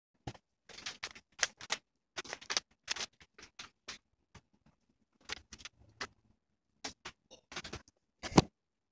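Plastic MRE pouch packaging crinkling and rustling in irregular bursts as hands handle and open it, with one sharper crackle near the end.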